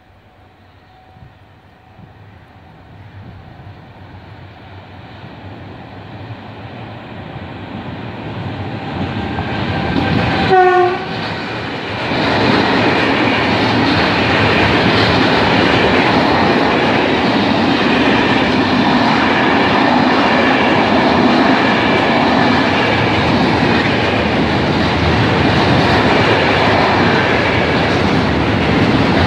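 Container freight train approaching and growing steadily louder. About ten seconds in, the locomotive's horn gives one short blast. From about twelve seconds the loaded container wagons roll past close by with a steady rumble and clatter of wheels on the rails.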